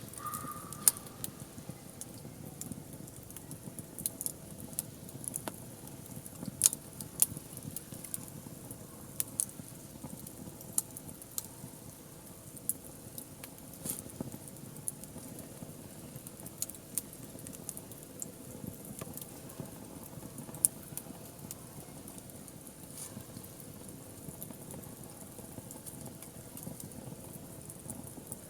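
Wood fire burning in a fire pit: irregular crackles and sharp pops over a steady low rush.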